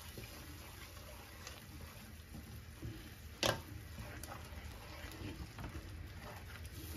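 Wooden spatula stirring and scraping a thick shallot and parsley sauce in a frying pan over low heat, with a faint simmer, as butter is worked in to finish the sauce. One sharp knock about halfway through.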